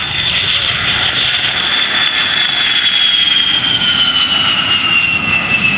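Fairchild Republic A-10 Thunderbolt II's twin TF34 turbofan engines at takeoff power as the jet lifts off and passes by: a loud high whine over a jet rush, the whine dropping in pitch from about halfway through.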